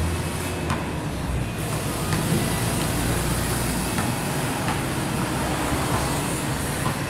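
Steady outdoor din of rumble and hiss like traffic noise, heaviest in the low range for the first few seconds, with a few faint scattered knocks.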